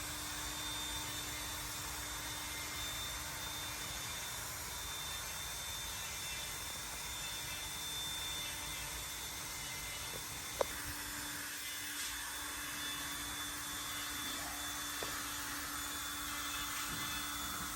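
Steady whirring noise of a running workshop machine with a faint steady hum, and one sharp click about ten and a half seconds in.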